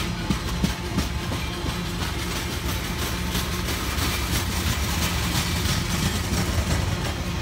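Tank cars of a weed sprayer train rolling past at close range: a steady rumble of steel wheels on rail, with a few sharp clacks in the first second. The tail end of the train is going by.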